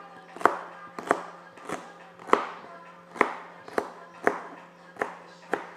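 Small kitchen knife dicing a vegetable on a cutting board: sharp knocks of the blade striking the board, about two a second, nine in all.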